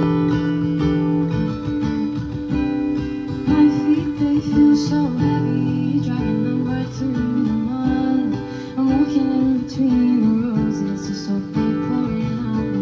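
Acoustic guitar playing the chords of a song's introduction.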